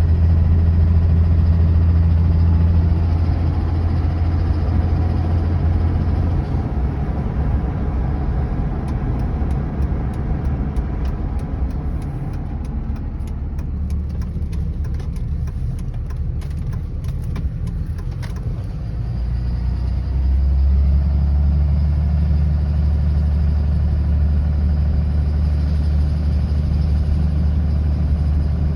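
5.9L Cummins inline-six diesel running, with a steady low drone. From about 8 to 19 seconds in, a run of irregular sharp ticks sounds over the engine: the unidentified noise, which the owner suspects could be the injectors, an exhaust leak or the flex plate.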